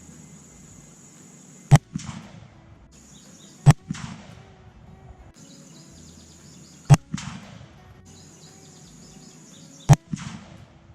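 Four rifle shots from a 30-06 M1 Garand, fired a few seconds apart, each with a short echo trailing off. A faint, steady high-pitched buzz carries on between the shots.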